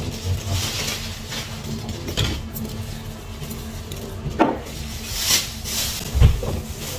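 Kitchen work: dishes, pans and utensils clinking and knocking, a few sharper knocks among them, with stretches of hiss.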